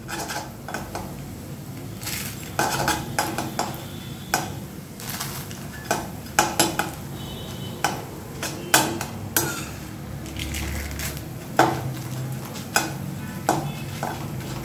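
Flat metal spatula scraping and clinking against a metal wok in irregular strokes as flattened rice (chira) deep-fries in hot oil, with a steady frying sizzle underneath.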